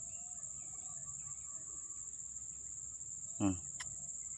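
Crickets chirring steadily at a high pitch, with faint scattered chirps beneath. About three seconds in, a single short call slides downward and stands out above the chirring.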